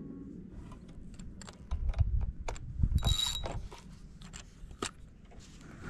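Spinning rod and reel being handled with the lure reeled up to the tip: a run of light, scattered clicks and rattles, with a couple of low thumps from handling or wind on the microphone about two to three seconds in.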